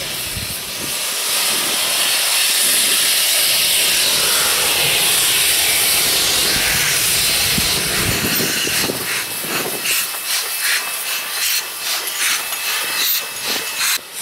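Narrow-gauge steam locomotive NM25 hissing loudly as steam blasts from its open cylinder cocks. About two thirds of the way in, the steady hiss breaks into a rapid, uneven pulsing of exhaust beats.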